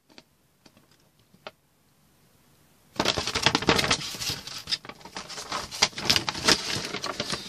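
Quiet with a few faint clicks, then about three seconds in a loud, busy rustling and crackling of paper pages and close handling noise as a camera instruction booklet is shuffled right by the microphone.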